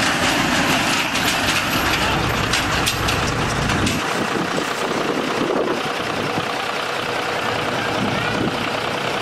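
Heavy diesel engine running while the overturned dump truck's steel cargo body is dragged across the asphalt on a crane cable, scraping and clattering. The scraping and low rumble are strongest in the first four seconds and then ease off, leaving a steady engine hum.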